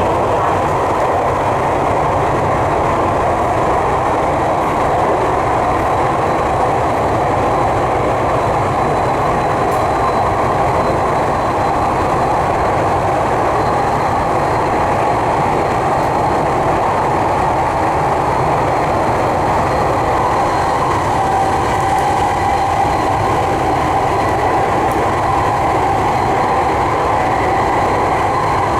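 Tokyu 3020 series electric train running, a steady, unbroken rolling rumble with a faint high whine above it that grows clearer in the second half.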